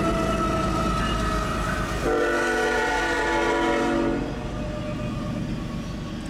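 Diesel locomotive horn over the low rumble of a freight train. About two seconds in, a louder horn chord starts and stops a little after four seconds, leaving the rumble of passing double-stack container cars.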